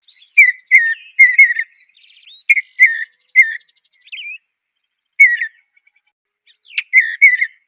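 Bluebird singing: short, soft whistled notes that dip in pitch, given in small clusters of two to four with brief pauses between.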